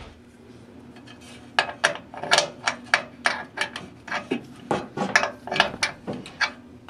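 A run of sharp metallic clicks, about three a second, from a wrench working the bolt that holds the crimp-on ground connector.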